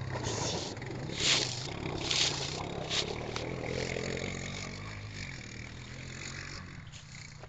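Honda TRX420 Rancher quad's single-cylinder engine running steadily as it drives out across thin ice and water, the sound slowly fading as it gets farther away. A few short splashing hisses of spray come about one, two and three seconds in.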